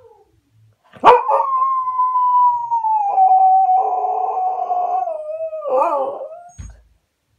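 Cocker spaniel howling: one long howl starting about a second in, slowly falling in pitch and wavering near the end. It is a crying howl of a dog left behind when a family member stepped out.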